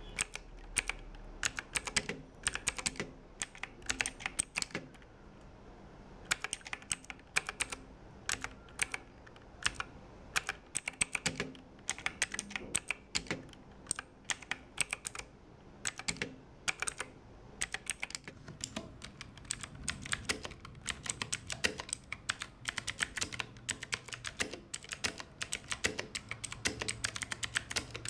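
Typing on a budget mechanical keyboard with clicky blue switches: rapid, sharp key clicks in quick runs, with a short pause about five seconds in.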